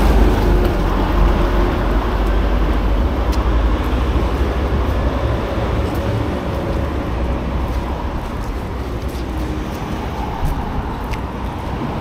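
Concrete mixer truck's diesel engine running close by, its low hum fading over the first few seconds, under steady city street traffic.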